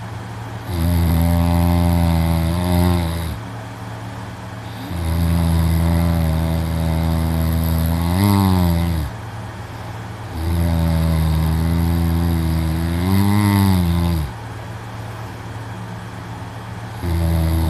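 A young man snoring loudly in deep sleep: long, low, rattling snores about every four to five seconds, each rising in pitch just before it breaks off, with quieter breathing between them.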